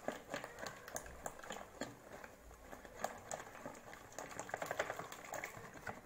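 Hand whisk beating thin semolina batter in a plastic bowl, mixing in baking powder: quick, uneven wet splashing and clicking, several strokes a second.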